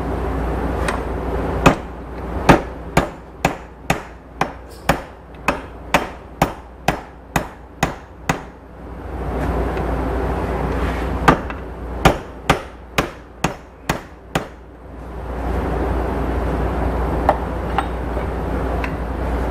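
Hammer blows on the U-joint yoke of a bush hog driveshaft, meant to drive out the stuck, heated bearing caps. The blows come in a fast run of about two or three a second for several seconds, then after a pause in a shorter run of about half a dozen. A steady low rushing noise fills the gaps and the last few seconds.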